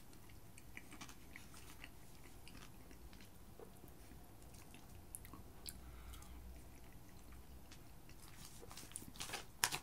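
Faint sounds of eating: chewing a mouthful of cheesy pepperoni fries, with light clicks of a metal fork picking at food in the tray. A few louder clicks come near the end.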